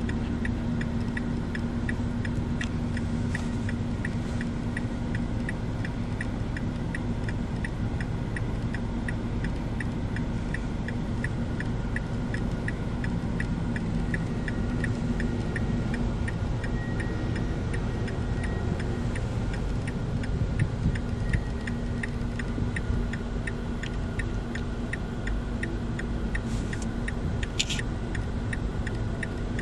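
Inside a moving car: a steady road and engine rumble, with an even ticking of roughly two and a half ticks a second running through it.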